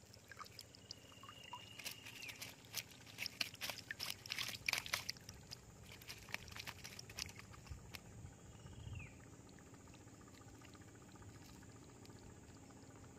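Water splashing and dripping as a mesh keep net holding fish is handled and lifted in shallow water, with a dense run of sharp splashes in the middle. A high whistling call sounds early on, held for about two seconds, and a short falling one comes later.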